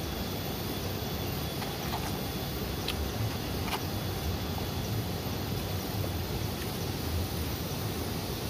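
Steady outdoor background noise with a low rumble, and a few faint short clicks a couple of seconds in.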